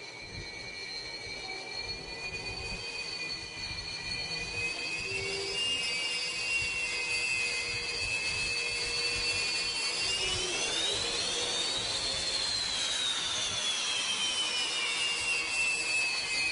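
Aircraft turbine engine whining steadily, its high tones gliding up in pitch about ten seconds in and then slowly falling back.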